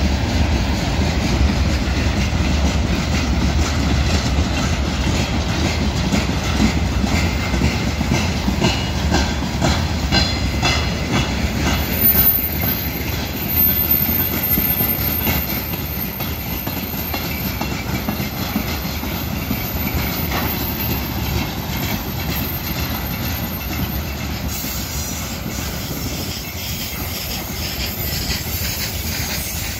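Empty freight wagons, hopper cars and tank cars, rolling past on steel wheels with a steady rumble and clickety-clack over the rail joints. A brief wheel squeal comes about ten seconds in, and the rumble grows quieter over the last half.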